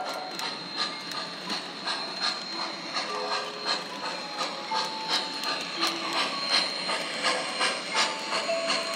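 O gauge model train with a smoking steam locomotive rolling past, its wheels clicking rhythmically over the three-rail track at about two to three clicks a second, the clicks growing louder toward the end. Faint music plays underneath.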